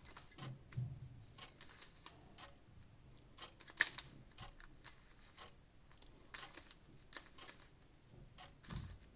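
Plastic Rubik's cube being turned through a sequence of moves: its layers click and rattle in quick, irregular runs, with one sharper snap about four seconds in.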